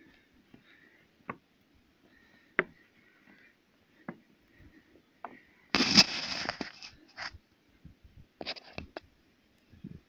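Scattered footsteps and scuffs of someone climbing, with a loud scrape lasting under a second about six seconds in, followed by a few more knocks.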